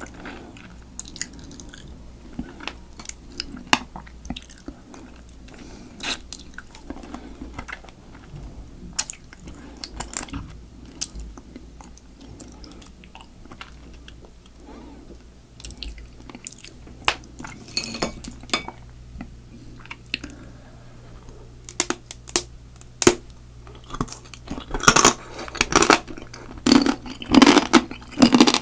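Close-miked eating sounds from spicy marinated crab (yangnyeom-gejang): wet chewing and sucking on pieces of crab and shell, with many small sharp clicks. The clicks and crunches get louder and come thick and fast in the last few seconds.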